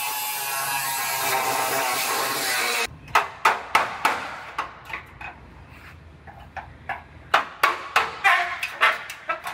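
Small cut-off wheel grinding through the steel radiator support, steady for about three seconds and then stopping abruptly. Then comes a run of a dozen or more irregular, sharp metallic clanks as a screwdriver is worked against the sheet-metal panel.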